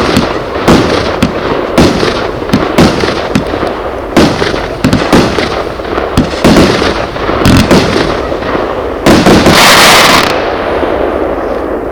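A 49-shot, 25 mm fireworks cake firing shot after shot, about two bangs a second. Near the end comes a loud hissing burst lasting about a second, then the sound fades.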